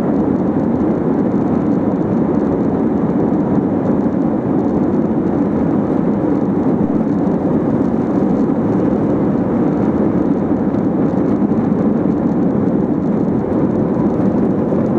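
Cabin noise of an Airbus A320-232 on its takeoff roll, heard from a window seat beside the wing: its IAE V2500 engines at takeoff thrust with the rush and rumble of the roll, a loud, steady, deep noise that holds even as the aircraft rotates near the end.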